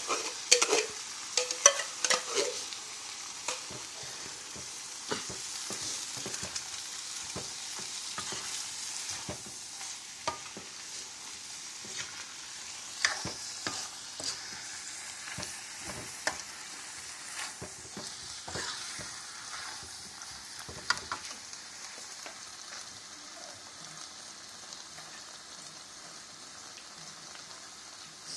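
Chicken and vegetables sizzling in a pan as freshly added coconut milk is stirred in, with the spatula clacking and scraping against the pan. The clacks are sharpest in the first few seconds, and the sizzle dies down toward the end.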